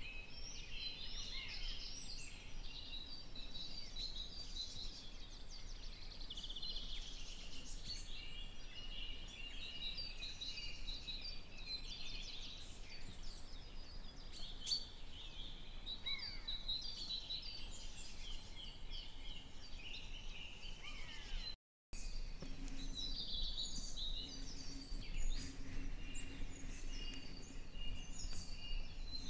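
Several songbirds singing at once, a dense spring woodland chorus of overlapping chirps and trills. The sound breaks off for a moment about two-thirds of the way through.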